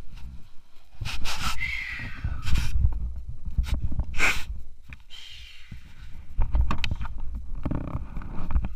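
Action camera being handled, with cloth rubbing and bumping against its microphone in irregular bursts of rustling and scraping, and a few knocks.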